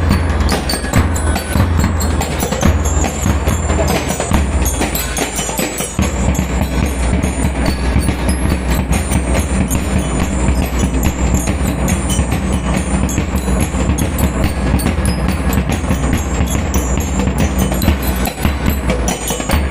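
Drum and lyre band playing: metal bell lyres ring out a melody over marching snare and bass drums, with a heavy, steady bass-drum beat that drops out briefly about six seconds in.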